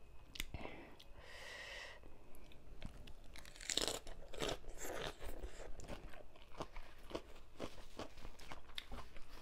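Close-miked chewing and crunching of mouthfuls of spicy papaya salad with raw vegetables, with a loud slurp of rice noodles about four seconds in.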